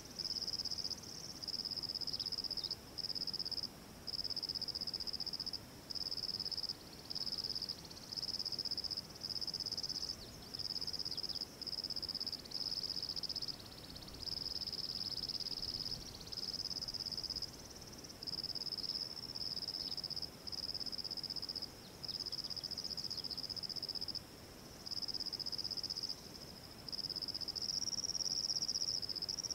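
High-pitched insect trilling, a steady buzz in bouts of about a second with short gaps between them, going on almost without stop. Faint short chirps sound now and then underneath.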